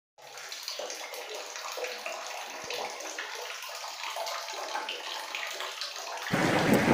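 Water splashing and hands rubbing the wet, soapy coat of a Labrador puppy being bathed on a tiled bathroom floor. The sound gets louder shortly before the end.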